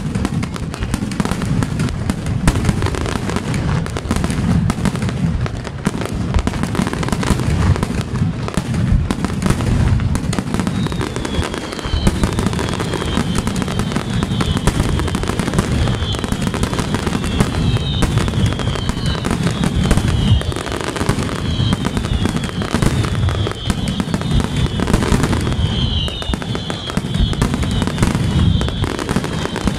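Aerial fireworks display: a dense, continuous run of shell bursts, bangs and crackling. From about a third of the way through, short high whistling tones that fall in pitch repeat every second or two among the bangs.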